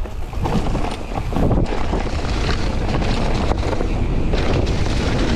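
Wind buffeting the microphone while riding a mountain bike on a dirt trail, with steady tyre rumble and short knocks and rattles from the bike over bumps.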